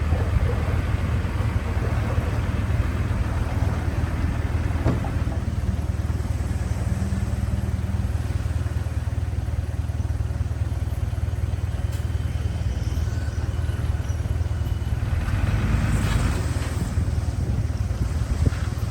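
Diesel engine of heavy earthmoving equipment running steadily with a deep, constant drone, with a few faint knocks now and then.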